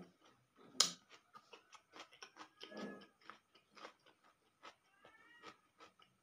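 Close-up chewing, with wet mouth clicks and smacking, of someone eating an omelette and raw cucumber, and one sharp click about a second in.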